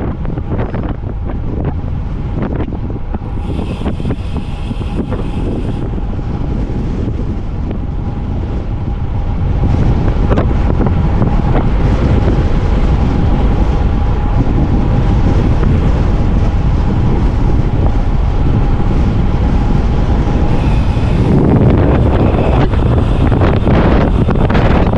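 Wind buffeting the camera microphone on a fast road-bike descent. It grows louder about ten seconds in, and a faint steady whine runs beneath it until near the end.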